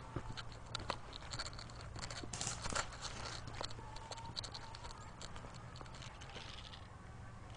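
Light rustling with scattered clicks and crackles, the sound of someone moving through dry brush and leaves, with a denser burst of rustling about two and a half seconds in.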